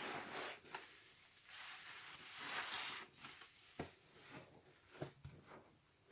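A sponge full of washing-machine liquid being squeezed: two long, wet squelches of suds in the first three seconds, then a few short sharp clicks and pops.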